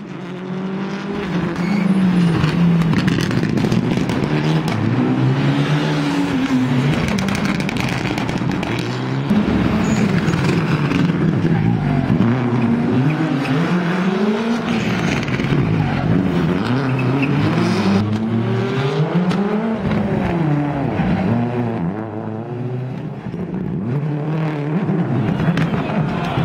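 Rally car engines revving hard on a race circuit, the pitch climbing through each gear and dropping again many times over, with some tyre noise.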